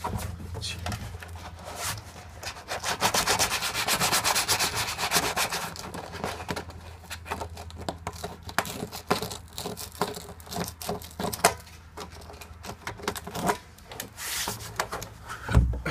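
Sandpaper rubbing inside a drilled hole in a plastic barrel: rapid rasping hand strokes, busiest from about two to five seconds in, then shorter scattered rubs, easing the hole a little so the tap fitting goes in. A thump near the end.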